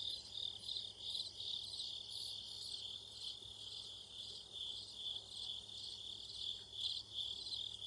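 Pre-dawn chorus of night insects: a steady, high, pulsing trill that repeats evenly, with fainter shrill pulsing above it.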